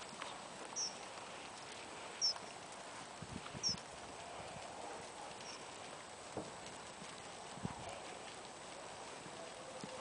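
Muffled hoofbeats of an Irish Sport Horse trotting on a soft arena surface, with a few dull thuds.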